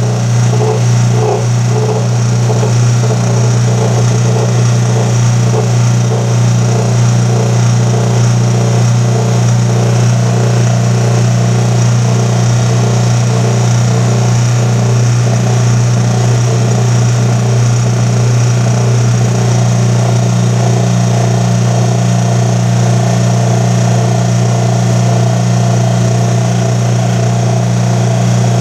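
Electric bench buffer running steadily with a low, even motor hum as a motorcycle brake caliper piston is held against its cloth buffing wheel with aluminium polish.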